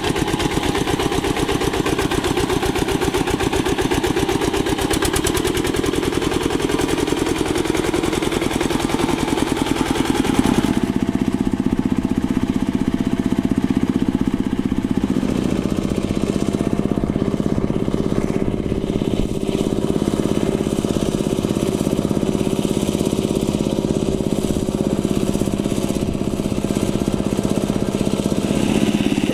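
A two-wheel hand tractor's single-cylinder Kubota diesel engine running steadily under load as it tills a rice paddy, a fast even chugging. Its tone changes abruptly about a third of the way in and again about halfway.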